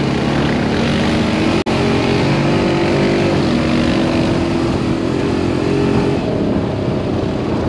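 Engine of an open off-road buggy running at a steady cruising speed, with wind and dirt-road rumble over it. The sound drops out for an instant about a second and a half in, and the engine note shifts slightly in pitch a little after that.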